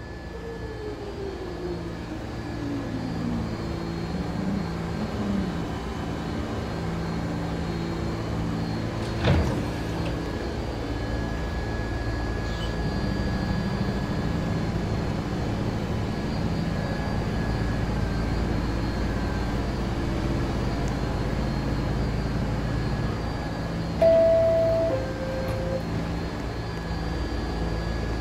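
Subway train pulling into a station, its motor whine falling in pitch as it slows, then standing with a steady mechanical hum. There is a sharp clunk about nine seconds in, and near the end a two-tone descending door chime.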